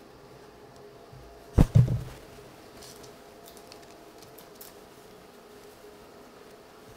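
Two quick, sharp knocks on a wooden tabletop a little under two seconds in, followed by faint light clicks and rustles of card handling.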